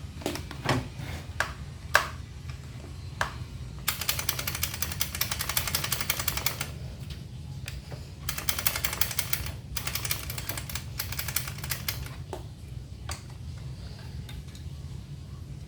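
Small gasoline engine of an inverter generator being cranked, with a few clicks, then three bursts of rapid, even clatter that die away without the engine running on. The carburettor is starved: no fuel is reaching the primer.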